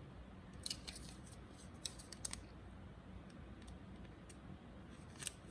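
Trading cards being handled: a few faint clicks and short scrapes of card against card, about a second in, a pair around two seconds in, and one near the end.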